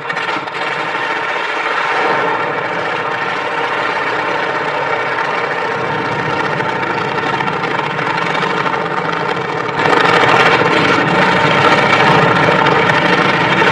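Engine on a test stand running just after being started, a steady mechanical run that gets louder about ten seconds in and holds at that higher level.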